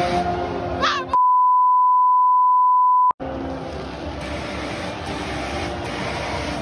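A steady 1 kHz censor bleep, about two seconds long, starting about a second in and cutting out all other sound while it lasts. Stadium crowd noise surrounds it before and after.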